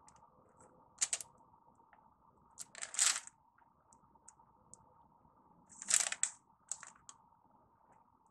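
A kitchen knife cutting through soft cookie dough, scraping and tapping against a wax-paper-lined wooden board. There are a few short scrapes and clicks, about one, three and six seconds in, over a faint steady hum.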